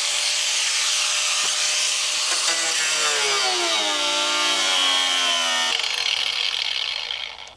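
Angle grinder cutting through the steel side panel of a school bus, its whine dropping in pitch as it bites into the metal about three seconds in, then dying away near the end.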